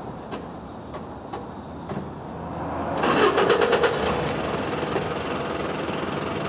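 A few sharp clicks, then an engine cranks and catches about three seconds in, with a quick stutter of pulses before settling into steady running.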